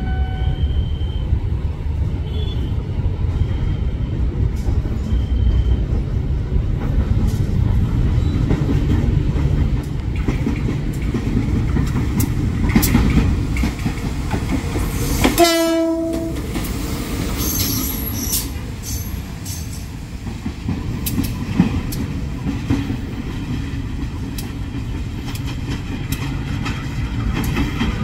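KAI diesel-electric locomotive running as it approaches and passes, with engine and wheel noise on the rails. A horn note ends just after the start, and a short horn blast sounds about halfway through.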